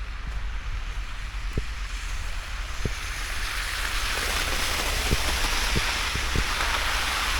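Wind buffeting the microphone with a steady low rumble during a snowstorm, and a rushing hiss that swells from about three seconds in, with a few faint ticks.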